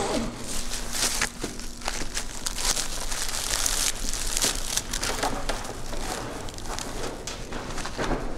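Rustling and crinkling of a thick bag being gripped and shifted by hands, with many small crackles and scrapes, over a low steady hum.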